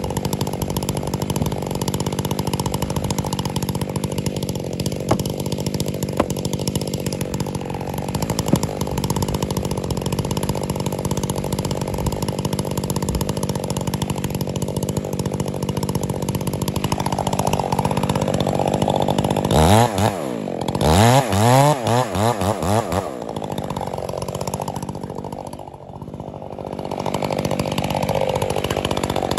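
Stihl 661 two-stroke chainsaw with a 36-inch bar cutting the face notch into the base of a large pine, running steadily under load. Past the middle it revs up and down several times, drops back briefly about 26 seconds in, then runs up to full speed again.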